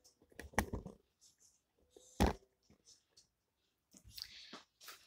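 Kitchen handling sounds of metal utensils and a steel bowl: a quick cluster of clattering knocks, one louder metallic clunk with a brief ring about two seconds in, then a short rustle near the end.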